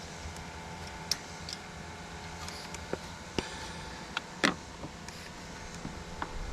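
Scattered metallic clicks and knocks from greasing an excavator's fittings with a grease gun, over a steady low hum. About half a dozen clicks, with the loudest knock about four and a half seconds in.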